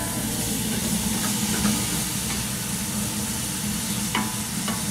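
Seasoned ground lamb sizzling as it browns in a stainless steel stockpot, stirred and broken up with a wooden spoon. A few light knocks of the spoon against the pot, the clearest two near the end.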